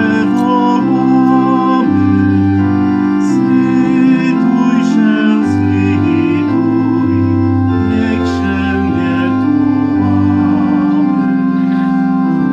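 Organ playing slow, held chords over a deep bass line, the harmony changing every second or two.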